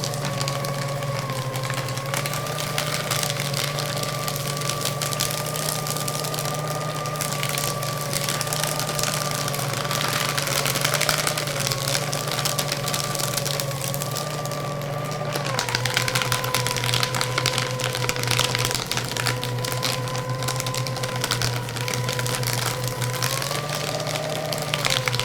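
Electric paper shredder running continuously, its motor humming with a whine over the dense crackle of paper being cut. The whine drops in pitch about two-thirds of the way through and rises briefly near the end.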